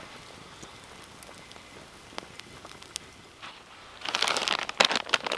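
Faint scattered crackles, then about four seconds in a loud crinkling as a packet of instant mashed potato is handled.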